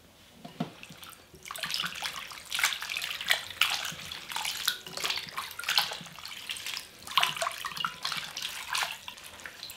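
Hands swishing and splashing blanched spinach in a glass bowl of cold water, rinsing it to take the heat out. Irregular sloshes and splashes start about a second in and go on, with water dripping as handfuls are lifted out.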